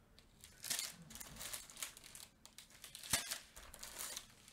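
Small plastic bags of diamond painting drills crinkling as they are handled, in irregular rustles, with one sharp tap about three seconds in.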